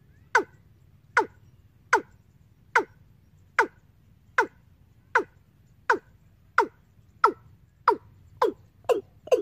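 Bird-trapping lure recording of the 'ayam tembaga' bird call: short, downward-sweeping notes repeated a little over once a second, coming faster near the end.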